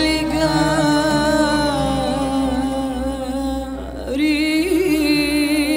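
A woman singing long, held Arabic vocal phrases with wide vibrato over a string-led Arabic orchestra. The line drops away briefly a little before four seconds in, then a new held phrase begins.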